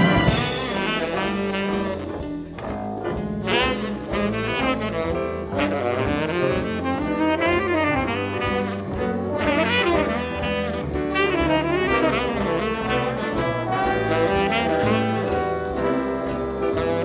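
Jazz big band playing: the brass section loud at the start, then a saxophone line over the rhythm section and bass.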